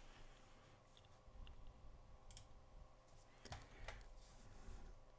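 A handful of faint, sharp clicks from a computer mouse and keyboard, the two loudest a little past the middle, over a faint steady hum.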